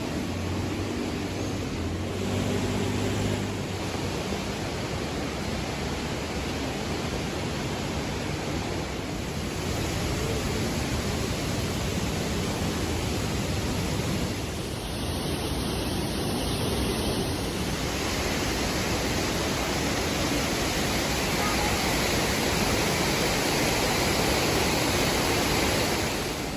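Steady rushing noise spread evenly from low to high pitch, with a brief change in its character about fifteen seconds in.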